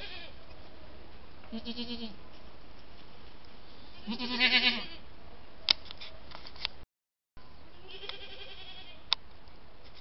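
Goats bleating: three wavering bleats, a short one early, a loud long one about four seconds in, and a fainter one near eight seconds. A few sharp clicks come between them.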